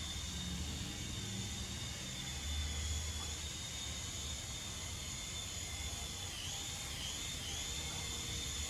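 SYMA S53H toy RC helicopter's small electric rotor motors whining steadily at a high pitch. The pitch dips briefly two or three times about six and a half seconds in.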